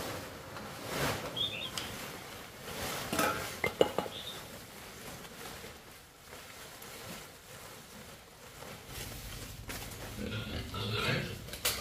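Piglets grunting, louder near the end, with a plastic tarp rustling as it is handled and a few sharp clinks about four seconds in.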